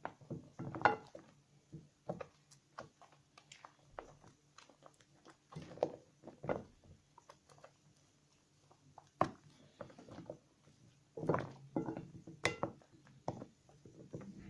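Hands lathering wet soap slivers: irregular short rubbing and squishing sounds with quiet gaps between them. The loudest comes about a second in.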